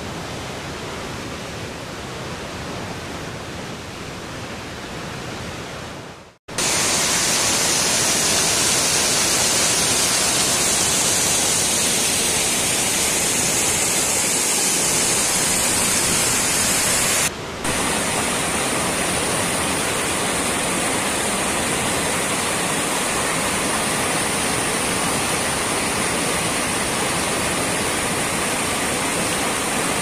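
Waterfall rushing over rocks: a steady roar of falling water. It breaks off briefly about six seconds in, then comes back much louder and brighter, with one short dip just past the middle.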